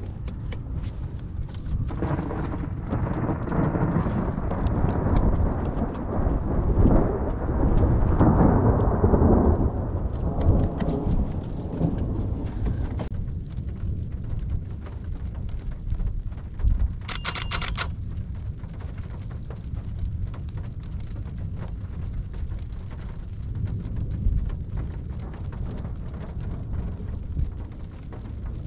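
Thunder from a lightning strike rolling and rumbling for about ten seconds, building to its loudest about seven to nine seconds in, then dying away into a low steady rumble.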